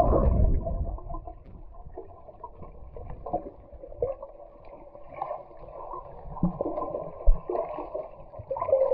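Muffled sloshing and gurgling water, loudest in the first second and then softer, with irregular small splashes.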